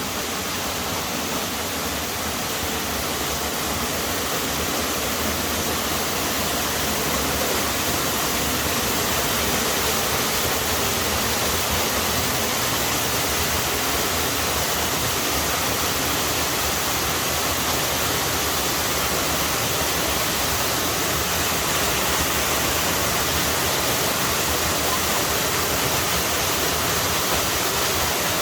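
Waterfall: a steady rush of falling water, growing slightly louder over the first several seconds and then holding even.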